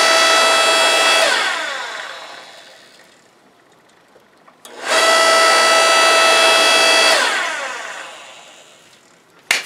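Electric motor and hydraulic pump of a 6-ton electric log splitter running with a steady whine, then switched off and spinning down with a falling pitch. About halfway through, the lever switch starts it again for about two seconds before it winds down once more. The lever now switches the motor and drives the ram together, showing the rewired switch works.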